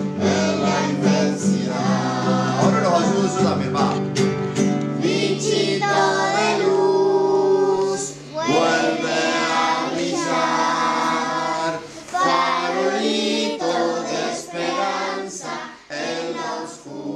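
A song sung by several voices over held low instrumental notes, playing under the closing credits.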